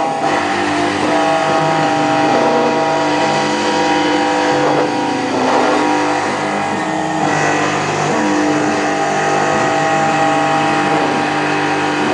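CNC milling machine running, the spindle and cutter giving a steady whine of several held tones over a hiss, with a few brief sliding pitches around the middle.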